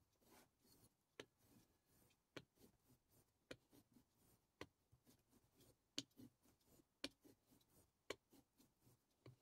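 Faint, sharp clicks about once a second with soft rubbing between them: a deba knife's steel blade being stroked along a block clamped in a wooden holder and touching it at each stroke, in finishing strokes on the edge.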